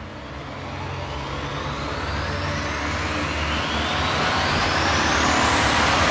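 Cinematic riser sound effect: a rising swell of noise over a low rumble, growing steadily louder and higher.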